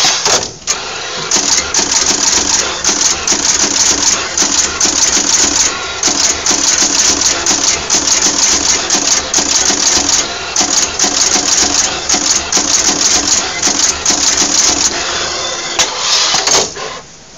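Automatic axial-lead insertion machine running: a rapid, regular clatter as the insertion head drives taped resistors one after another into a circuit board while the board table shifts between placements. The clatter stops near the end.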